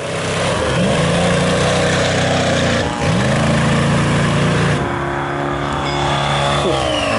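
Detroit diesel engine of a mega truck pulling away under load: its pitch climbs, dips about three seconds in as it shifts gear, climbs again, then settles lower and falls away near the end.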